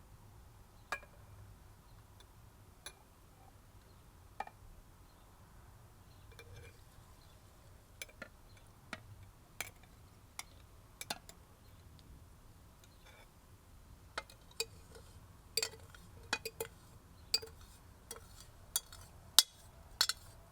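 A utensil clinking against a glass or pot while sugar is stirred into water to dissolve it. The clinks are scattered and faint at first and come much faster in the last six seconds or so.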